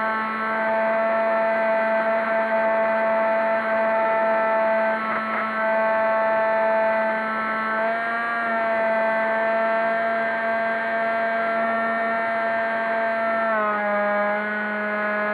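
Electric motor and pusher propeller of a Multiplex EasyStar 3 foam RC plane, heard from a camera in its cockpit: a steady whine that drops slightly in pitch near the end.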